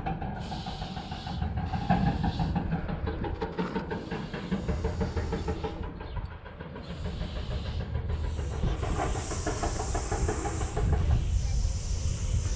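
Spray paint can hissing through a four-needle skinny cap adapter, sprayed in several bursts with short breaks between them, over a steady low rumble.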